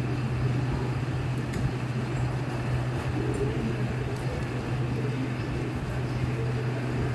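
Steady low hum over an even background noise, unchanging throughout.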